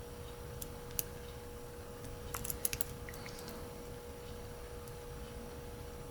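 Faint metallic clicks of a lock pick working the serrated pin stack of a Kryptonite padlock held in a false set: a couple of single clicks, then a quick cluster of clicks about two and a half seconds in, over a steady faint hum. The pick is probing from the back pins for the next binding pin.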